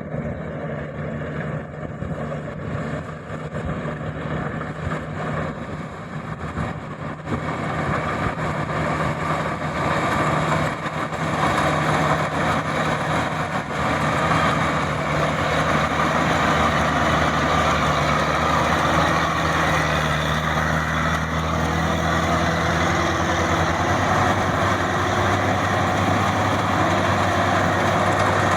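Maxxi 85 combine harvester running, with a steady engine hum under a broad mechanical whirr. It grows louder over the first dozen seconds, then holds steady, and the hum shifts a little in pitch near the end.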